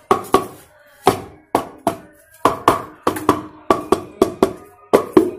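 Repeated sharp knocks, about three a second and unevenly spaced, of a wooden stick being struck against the aluminium crankcase of a two-stroke motorcycle engine. The case halves are being tapped closed evenly, using wood so the aluminium does not crack.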